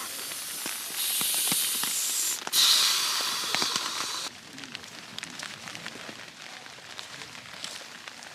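A steady hiss that gets louder about a second in and again around two and a half seconds, then drops away abruptly a little past four seconds, over scattered light ticks and crackles.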